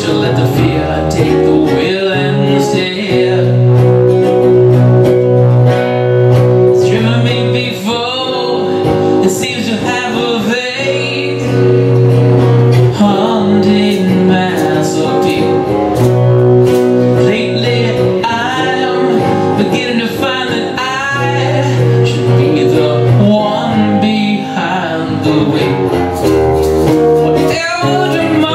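Two acoustic guitars playing a song together with a man singing lead.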